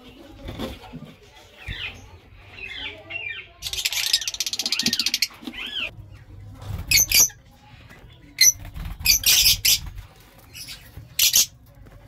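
Lovebirds calling: repeated short chirps, then a second-long burst of rapid chattering about four seconds in, followed by several brief shrill calls in the second half. Low rumbling handling noise runs underneath.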